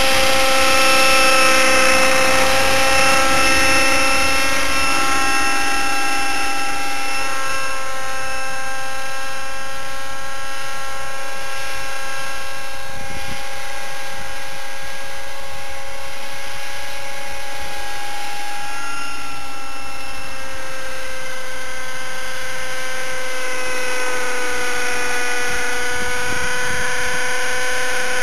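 T-Rex 600 nitro RC helicopter in flight, its OS 50 Hyper two-stroke glow engine with a Hatori performance muffler running as a steady high whine. It is a little louder in the first few seconds, and the pitch creeps up slightly near the end.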